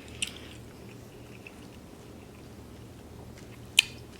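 A person quietly chewing food close to the microphone, with small wet mouth clicks and one sharp click near the end, over a faint low hum.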